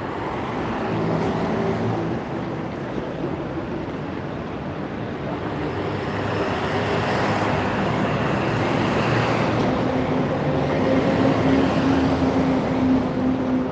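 City street traffic noise: a steady rumble of cars and buses, with a steady low engine hum coming up about ten seconds in.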